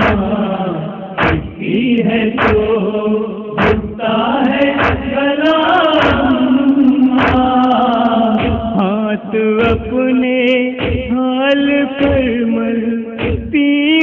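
Wordless sung interlude of an Urdu noha: a male voice holding and bending long notes over a background of sustained voices, with a steady low thud about every 1.2 seconds keeping time.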